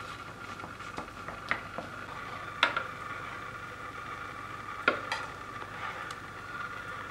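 Kitchenware clinking: a few sharp metallic clinks over a steady hum.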